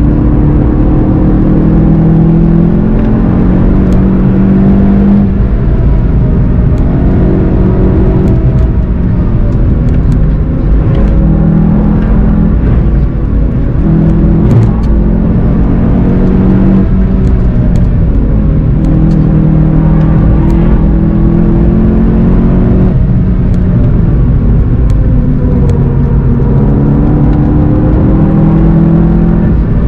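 Volkswagen Golf 7 GTI TCR's turbocharged four-cylinder engine pulling hard on track, its pitch climbing and dropping again several times through gear changes and lifts, over a steady low rumble of road and wind noise.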